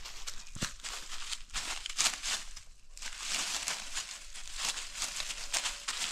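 Dry leaf litter on a forest floor rustling and crunching in irregular scratchy bursts, as it is stirred and trodden.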